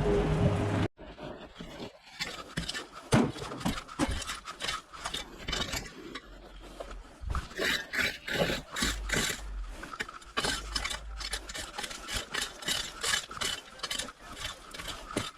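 An engine runs for about the first second and cuts off abruptly. After that come irregular scraping and rubbing sounds with many short clicks.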